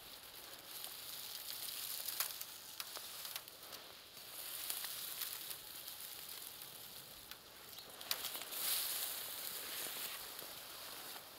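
Boots stepping through dry, matted grass: a steady crackling rustle with many small sharp snaps, swelling and easing with each stride.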